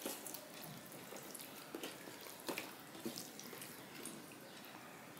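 Faint wet squishing of fingers mixing rice with curry on a steel plate, with a few soft clicks.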